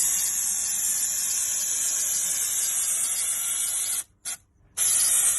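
Aerosol can of 3M High Strength 90 spray adhesive spraying: a steady hiss for about four seconds, a short puff, then a second long spray starting near the end.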